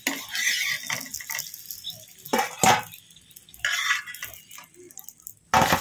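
A steel spatula knocking and scraping against a non-stick frying pan as fried parathas are lifted out, over sizzling oil. There are a few sharp knocks midway and a louder clatter near the end.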